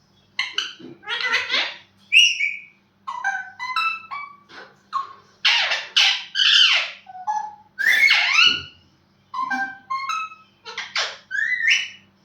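Pet parrot calling: a rapid run of short whistled notes that slide up and down, with louder, harsher squawks about halfway through.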